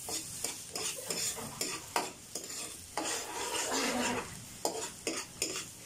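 Minced garlic sizzling in melted butter in a steel wok while a metal spoon stirs it, scraping the pan in repeated strokes.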